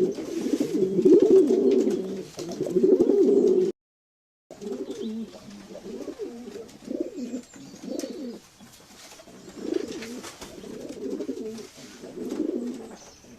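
Domestic pigeons cooing: several low, overlapping coos at first, then a sudden cut to silence about four seconds in, after which the cooing resumes in separate, somewhat quieter phrases.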